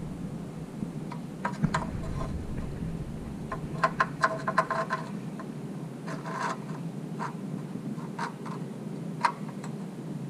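Metal mounting bracket clinking and scraping as it is worked up into a hole in the car's front crossmember: scattered light metallic clicks, some ringing briefly, with a quick cluster about four seconds in.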